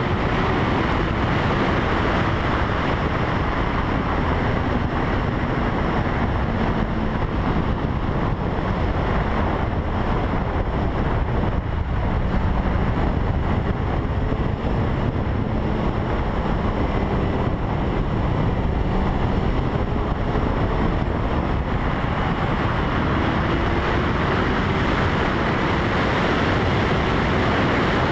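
Wind rushing over a helmet camera's microphone at track speed, largely covering a Honda CBR1000RR's inline-four engine. The engine note is heard faintly under the wind, its pitch rising and falling with throttle and gear changes.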